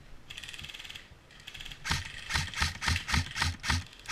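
An airsoft electric gun (AEG) firing a short full-auto burst: a fast, even mechanical clatter of its gearbox that lasts under a second. About two seconds in comes a louder run of thuds, about three a second.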